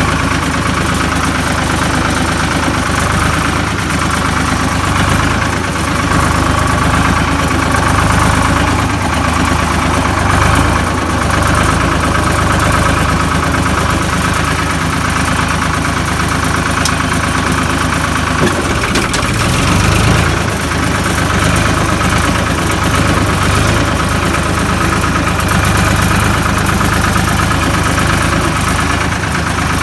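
Ford tractor's diesel engine running steadily as the tractor drives across a stubble field, heard close up from the driver's seat.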